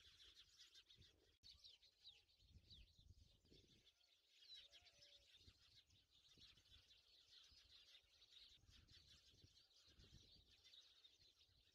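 Near silence, with faint bird chirps and tweets in the background.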